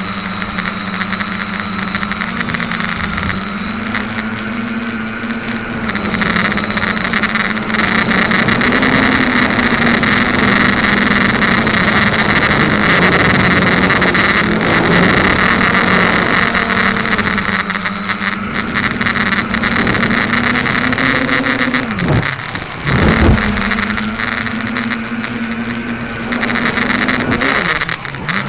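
SK450KK2 quadcopter's electric motors and propellers whirring, heard through its onboard camera, the pitch wandering up and down with the throttle. It grows louder about six seconds in, and about two-thirds of the way through the pitch drops sharply and sweeps back up as the throttle is cut and reopened.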